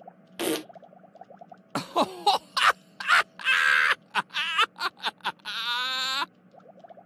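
A cartoon man laughing: a run of loud laughing bursts that ends in one long wavering note near the end.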